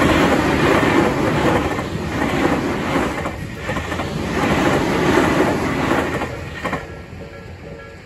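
A Tobu electric commuter train rumbling past over a level crossing, its wheels clacking over the rail joints, until the last car clears about seven seconds in and the noise drops away. The crossing's Nikko-type warning bell keeps ringing steadily beneath it and stands out once the train has gone.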